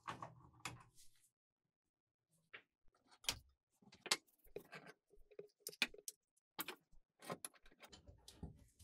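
Steel wrenches clinking against metal: a burst as one is lifted off pegboard hooks at the start, then after a short pause a string of sharp, separate clicks and knocks as wrenches are handled and fitted onto a bike pump's metal fitting on a wooden workbench.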